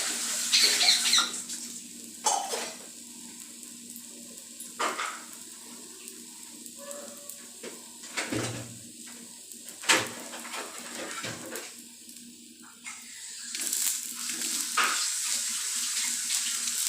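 Dosa batter sizzling on a hot griddle as it roasts uncovered, with a utensil knocking and scraping against the pan a handful of times.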